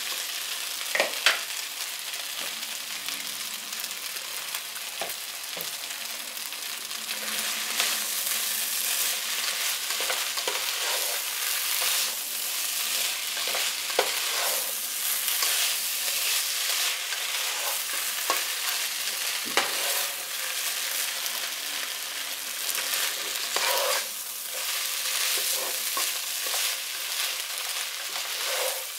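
Fried rice with beef and spinach sizzling in a nonstick pot while a plastic spatula stirs and turns it. A steady frying hiss runs under scattered scrapes and taps of the spatula against the pot.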